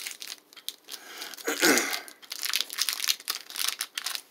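Plastic granola bar wrapper crinkling and tearing as it is pulled open by hand, a run of sharp crackles that is loudest about a second and a half in.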